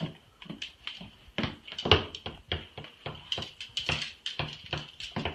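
A rooster's claws clicking on a tiled floor as it steps about: irregular sharp taps, a few a second, over a faint steady high tone.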